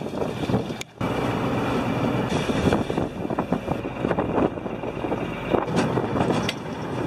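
A fishing boat's engine running under steady wind and sea noise, with scattered knocks and clatter on deck. The sound drops out briefly about a second in, then resumes.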